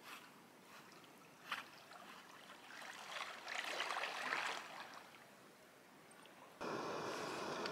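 Dog swimming through still pond water, faint paddling and lapping with a stretch of louder splashing about three to four and a half seconds in as it nears the shore. About a second before the end the sound cuts abruptly to a steady, even hiss.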